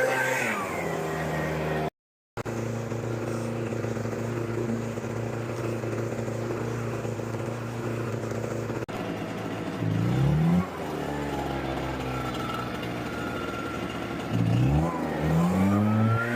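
A small motor running with a steady hum. It winds down in pitch right at the start, then speeds up briefly about ten seconds in and again near the end.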